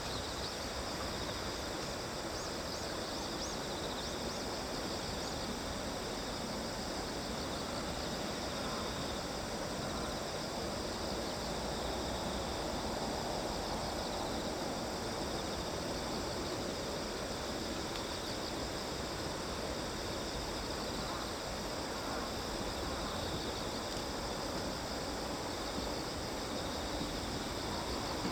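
Steady outdoor ambience: a chorus of insects trilling continuously in a high register over a low, even background hiss.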